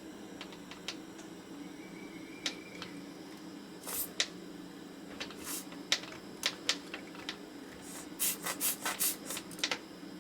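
Desoldering work on a circuit board: small clicks and scrapes of the tool and the part, with short hissing puffs, a quick run of them near the end, over a steady low hum.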